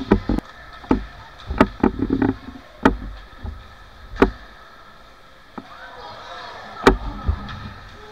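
Ice hockey play: a string of sharp knocks and clacks from sticks and puck hitting the ice and boards, several close together in the first three seconds and single loud ones about four and seven seconds in. Voices call out briefly about six seconds in.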